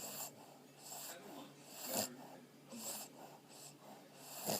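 Boston Terriers snoring: hissing breaths about once a second, with two sharper, louder snores, one about two seconds in and one at the end.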